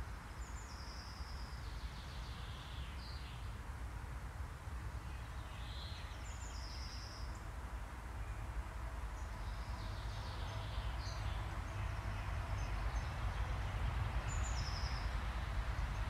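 Woodland songbirds: one bird repeats a short, high song phrase three times, several seconds apart, with softer calls from other birds in between. A steady low rumble runs underneath.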